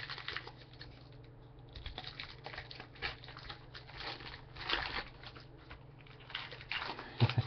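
Baseball trading cards and foil card-pack wrappers being handled by hand, crinkling and rustling in irregular short bursts, with a couple of sharp snaps near the end.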